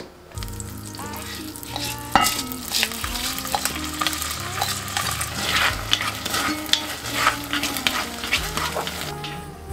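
Soaked rice frying in melted butter in an enamelled cast-iron pot, sizzling and crackling while a wooden spoon stirs and scrapes it around the pot, with a sharp knock about two seconds in.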